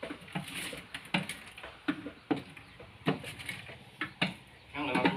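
A 12-volt popcorn machine at work: a string of sharp clicks from the kettle, about two or three a second, over a faint low hum.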